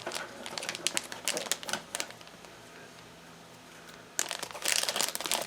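Plastic blind-bag wrapper crinkling and crackling as it is handled and opened. There is a lull of about two seconds in the middle, then the crackling starts again.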